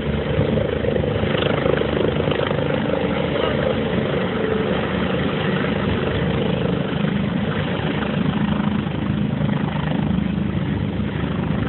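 Helicopter hovering low and settling in to land: the main rotor beats fast and evenly over the steady running of the turbine engine.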